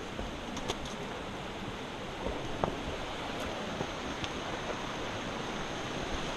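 Steady rushing of a shallow rocky creek running beside the trail, with a few light clicks scattered through it.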